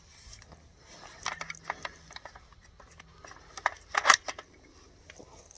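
A run of sharp metal clicks and clacks from an AK-pattern gun being worked by hand to clear a malfunction, with a loud cluster about four seconds in.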